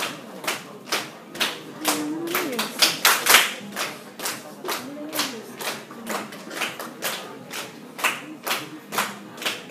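Hands clapping in a steady rhythm, about two claps a second, keeping time for a dance. A voice rises and falls briefly twice.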